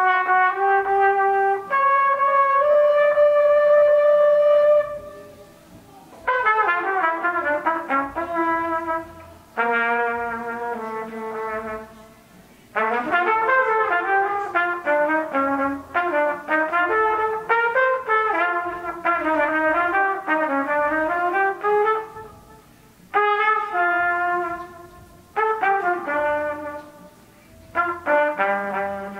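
Trumpet playing a melodic line in separate phrases, with a held note near the start and quick runs of notes through the middle, broken by brief pauses between phrases.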